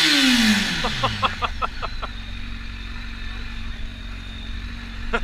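Kawasaki sport bike engine given a quick throttle blip, its revs falling back over about a second and a half, then settling to a steady idle. A quick run of short high-pitched sounds comes about a second in and again at the very end.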